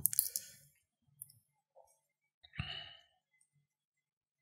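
Small plastic and metal parts of a taken-apart Smok Nord vape clicking and scraping as they are fitted together by hand: a quick cluster of light clicks at the start, a single tick about a second in, and a short knock with a scrape about two and a half seconds in.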